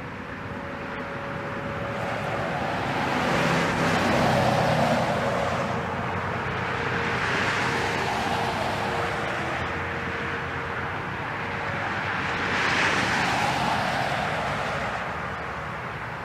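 Road traffic passing in three waves, each car's noise swelling and fading, over a faint steady tone.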